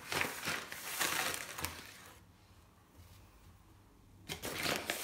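A plastic bag of sugar crinkling in the hand while a spoon scoops sugar out of it. There are two stretches of rustling, one at the start and one near the end, with a quieter pause between.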